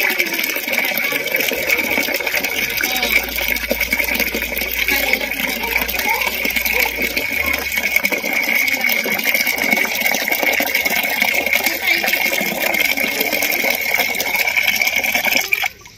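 Water from an outdoor tap pouring and splashing into a plastic tub already part full, with a steady high-pitched tone underneath. It stops abruptly near the end.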